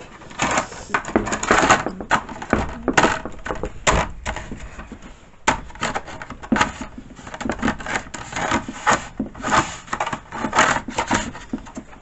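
Plastic chainsaw bar scabbard being handled against the bar: irregular bursts of scraping and rattling clacks.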